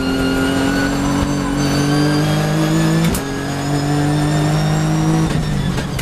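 Nissan GT-R GT3's twin-turbo V6 race engine from inside the cockpit, accelerating hard with the pitch climbing. About three seconds in, a clack and a sudden drop in pitch mark an upshift. Near the end the engine note falls away as the driver lifts for braking, and another sharp clack follows.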